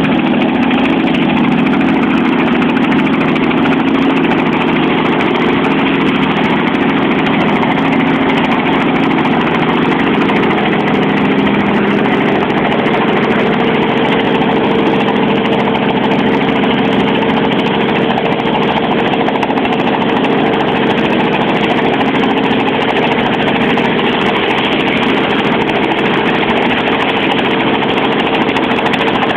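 Small helicopter running steadily on the ground at idle, engine and rotor turning, before lifting off.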